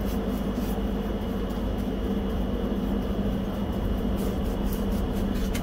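A steady machine hum with a low drone, like a fan or motor running in the workshop. Over it come faint scratchy strokes of a paintbrush laying primer on the vise's cast-iron body.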